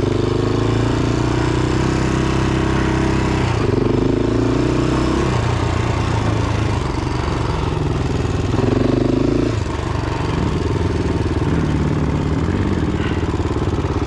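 Single-cylinder off-road engine, dirt bike or quad, running steadily at low to moderate revs. The revs pick up briefly twice, about four seconds in and again about nine seconds in.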